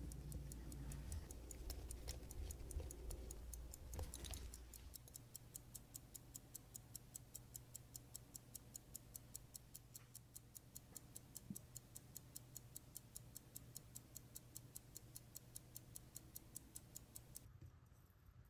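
Keystone Howard Series 5 pocket watch movement running with its balance freshly installed: the escapement gives faint, rapid, perfectly even ticks. A faint low rumble fills the first few seconds before the ticking stands out, and the ticking stops shortly before the end.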